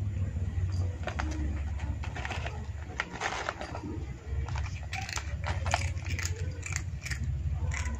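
A cat chewing crunchy snack sticks and crisps, with a run of sharp crunches and crackles, thickest in the middle, over a low steady rumble.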